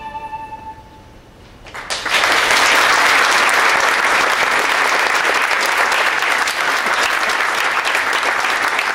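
The last held note of a bowed string piece, led by the violin, fades out about a second in. After a brief hush, an audience breaks into applause that stays steady and loud to the end.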